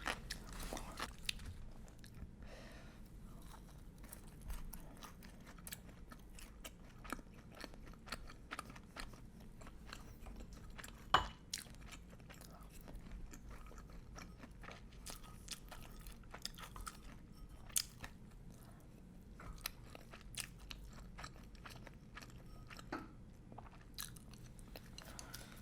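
A person chewing and biting crispy Japanese fried chicken (karaage) close to the microphone: soft crunches and wet mouth clicks throughout, with one sharper crunch about eleven seconds in.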